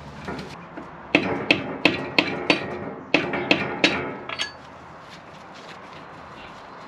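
Hammer blows on the stuck cylinder liners of a Rover K-series engine block, about nine sharp, ringing metal strikes in two quick runs. The liners do not come free.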